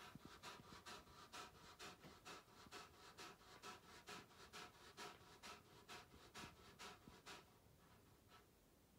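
Wolf dog panting faintly in a steady rhythm, a little over two breaths a second, stopping about seven seconds in.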